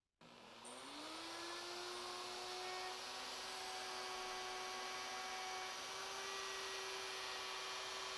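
Electric plunge router with a bearing-tipped flush-trim bit starting up, its pitch rising for about a second as the motor comes up to speed. It then runs steadily while routing out a mortise in a hard maple leg.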